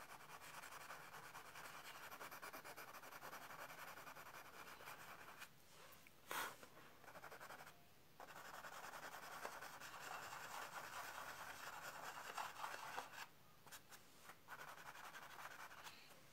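Faint scratching of a colored pencil shading across tan toned paper, in runs of strokes with short pauses, pressed harder to lay in white highlights. One short sharp tap about six seconds in.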